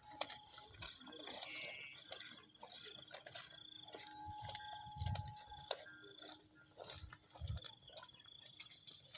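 Steady high-pitched trilling of insects, with scattered clicks and crackles and two dull thumps about five and seven and a half seconds in.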